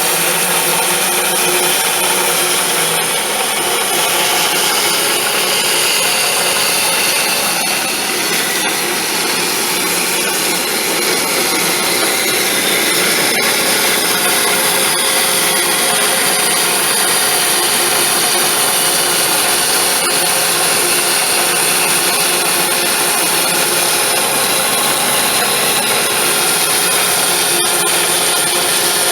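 Bandsaw blade cutting steadily through a thick elm beam.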